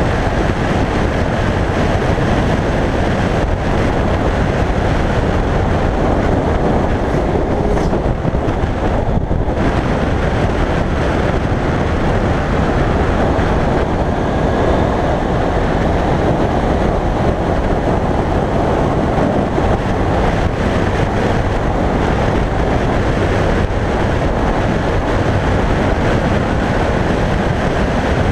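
2001 Yamaha YZF-R1's 998 cc inline-four engine running at a steady pace while the bike is ridden. Heavy wind rush over the on-board microphone is mixed in.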